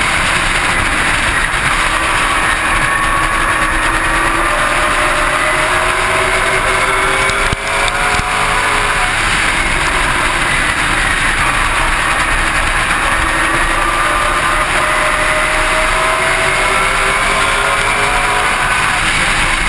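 Super Late Model race car's V8 engine running at racing speed, heard on board. Its pitch rises and falls as the car works the straights and turns, with a brief dip in level about a third of the way in.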